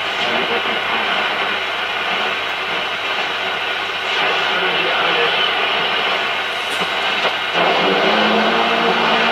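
Shortwave static and hiss from the Selena B210 transistor radio's loudspeaker as it is tuned across the band, showing the receiver is picking up signals. Near the end the noise changes and a steady low tone comes in.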